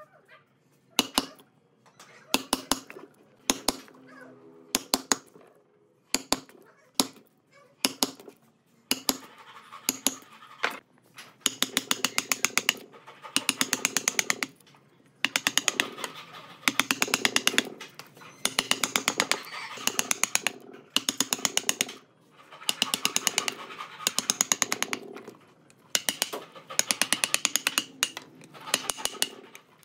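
Steel chisel chopping by hand into weathered wood, cutting out a round recess: sharp wooden knocks about a second apart at first, then quick runs of rapid taps, each about a second long with short pauses between.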